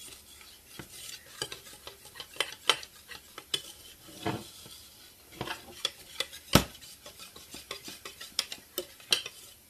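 Chocolate icing being stirred in a small saucepan over low heat, the utensil scraping and tapping irregularly against the pan, with one sharper knock about six and a half seconds in.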